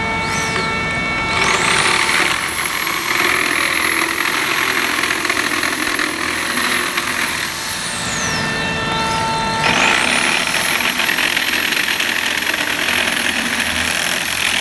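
Corded reciprocating saw cutting through a plastic snowboard binding: the motor winds up to a high steady whine over a rasping cut, winds down about eight seconds in, and is started again a second and a half later.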